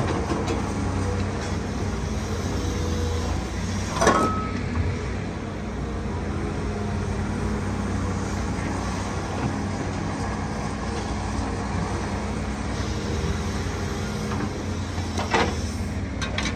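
Diesel engine of a CAT hydraulic excavator running steadily under work. Two sharp knocks come from the steel grab handling stone, one about four seconds in and one near the end.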